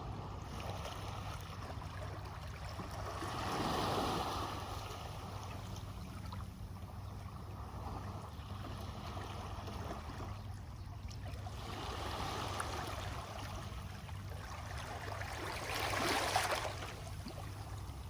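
Small waves washing up and back on a pebble beach, the stones rattling and clattering in each wash. Three surges stand out, about 4, 12 and 16 seconds in, the last the loudest.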